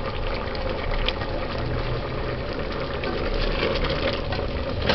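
Pot of stew peas boiling steadily, the bubbling of a thick stew that is starting to stick to the bottom of the pot as it nears done. Near the end a ladle goes in to stir it.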